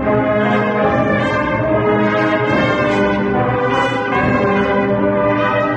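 A brass band of cornets, trumpets, trombones and tubas playing a processional march in full, held chords.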